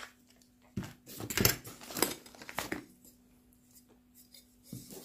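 Clear plastic bags crinkling and rustling in a few short goes as packed items are handled, quieter for a moment before the end, with a faint steady hum underneath.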